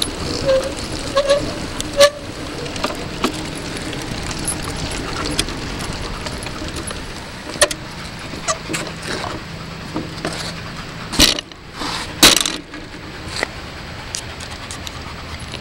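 Mountain bike rolling slowly over paving stones: a steady rumble with scattered clicks and rattles, and two loud knocks about eleven and twelve seconds in.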